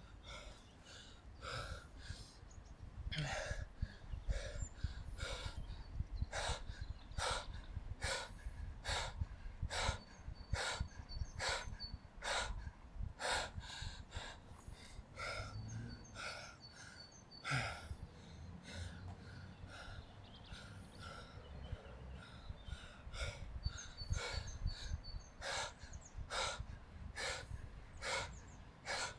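A man panting hard, with short forceful breaths about twice a second, out of breath from exertion while resting and then doing push-ups.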